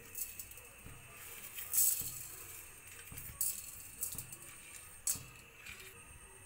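Whole spices (coriander seeds, cinnamon sticks, cloves, cardamom) tipped from a steel plate into a dry steel kadai, rattling and clicking on the metal in a few separate pours, the loudest about two seconds in.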